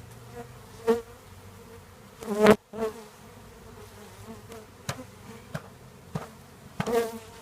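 Honeybees buzzing in the air around a newly dumped package, with single bees flying close past now and then, their buzz bending up and down in pitch. A loud bump about two and a half seconds in.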